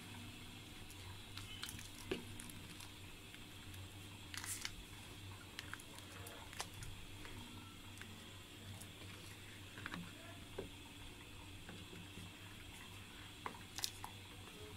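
A spatula stirring a pan of thick masoor dal: soft, wet squishing with scattered clicks and scrapes against the pan, over a low steady hum.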